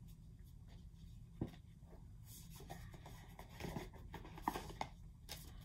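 Faint rustling and light taps of paper picture sleeves of 7-inch vinyl singles being handled and sorted, with one sharper tap about one and a half seconds in.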